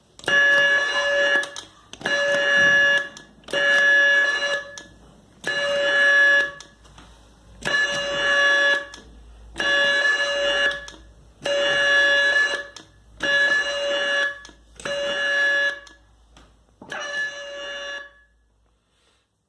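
Quiz buzzer system's electronic buzzer sounding ten times in a row, each a steady buzz of about a second with short gaps between.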